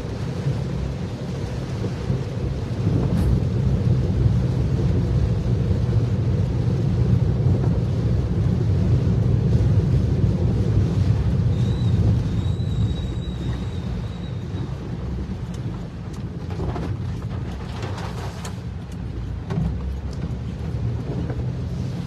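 Low steady rumble of a car driving through heavy rain on a wet road, heard from inside the cabin with rain on the windscreen. The rumble is heaviest in the first half, and a faint thin high tone sounds for a few seconds around the middle.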